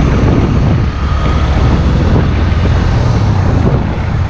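Heavy truck driving past close by, its engine and tyres making a loud, steady low rumble.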